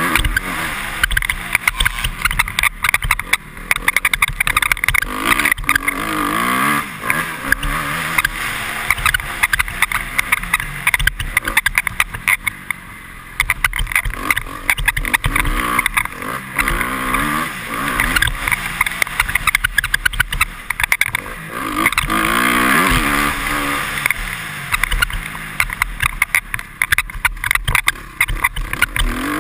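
2013 Honda CRF250R's four-stroke single-cylinder engine revving up and down as it is ridden hard around a motocross track, its pitch rising and falling over and over, heard from a helmet-mounted camera. Frequent sharp clicks and squeaks from the rider's helmet visor, which squeaks every time the bike hits a bump.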